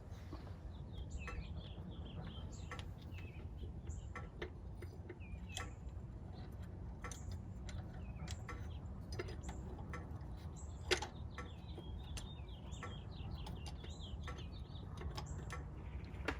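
Scattered light clicks and taps of metal parts and tools being handled as the high-pressure fuel tube is worked into the DD15's cylinder head, one click louder about two-thirds of the way through. Underneath runs a low steady rumble, and small birds chirp in the background.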